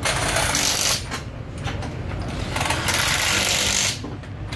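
Pneumatic impact wrench run in two bursts of about a second each, a hissing rattle, during a gearbox change on a rally car.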